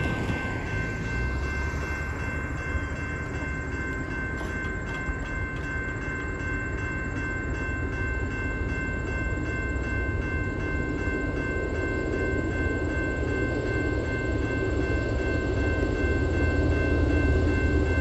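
Railroad grade-crossing warning bell ringing steadily while the low rumble of an approaching freight train, led by GE C44-9W diesel locomotives, grows louder toward the end.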